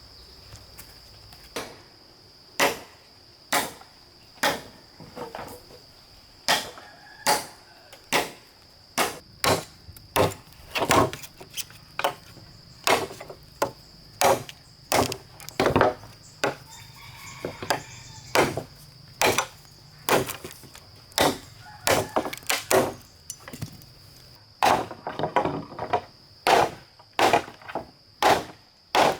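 Repeated chopping blows on wood, roughly one a second, with a steady high insect drone throughout.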